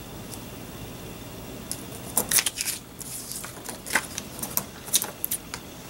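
Paper crafting supplies being handled: after a couple of quiet seconds, irregular crisp rustles and small clicks of stickers, tape and paper being picked up and placed.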